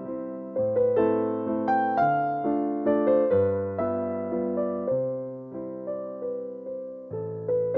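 Background piano music: a slow melody over chords, with notes struck about twice a second.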